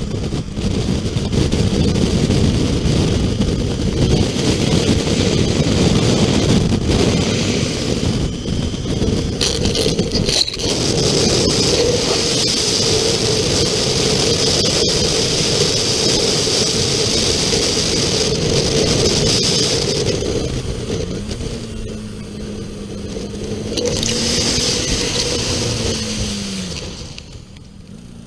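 Motorcycle riding at road speed: wind rushing over the microphone with the engine running underneath. Near the end it gets quieter as the bike slows.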